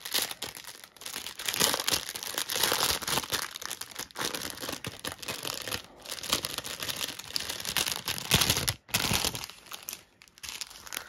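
Thin plastic packaging, small zip-lock bags and the canvas's protective film, crinkling and rustling in irregular bursts as it is handled, with short pauses between.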